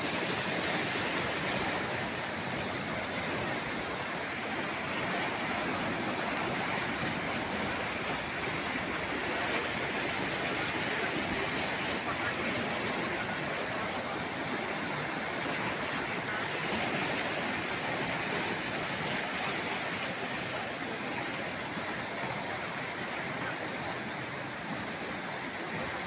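Fast-flowing floodwater rushing and splashing through a street, a steady churning rush of water.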